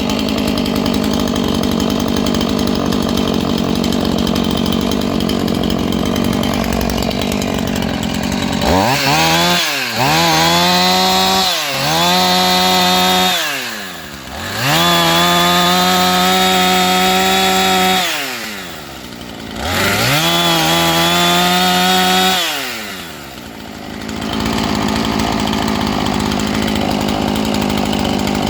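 Husqvarna 450 II two-stroke chainsaw idling steadily. After about nine seconds it is revved up several times, each rev held high for a few seconds before the engine drops back. It then returns to a steady idle.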